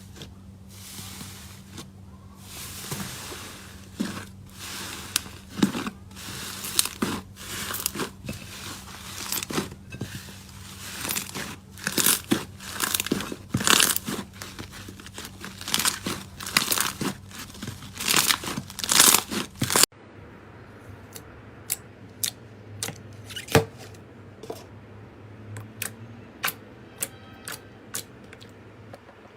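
Slime being squeezed and pressed with the fingers, with dense crackling, crunching bursts. About twenty seconds in it changes abruptly to a slower run of sharp clicks and pops.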